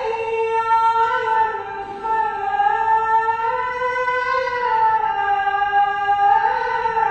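A muezzin chanting the azan, the Islamic call to prayer: one high voice holding a long, drawn-out phrase whose pitch bends slowly up and down.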